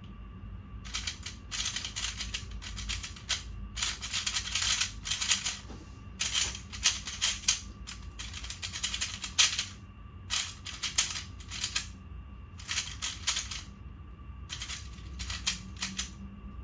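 A 3x3 plastic speed cube being turned fast. It gives runs of rapid clicking turns that last one to two seconds, broken by pauses of about a second, as a memorised solution is worked through blindfolded.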